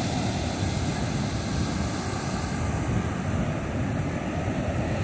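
Surf breaking and washing up a sandy beach, a steady rush, with wind rumbling on the microphone.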